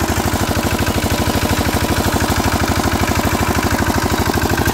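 Single-cylinder diesel engine of a two-wheel walking tractor chugging steadily under way, about ten beats a second. It is loud and close, heard from the seat just behind the engine.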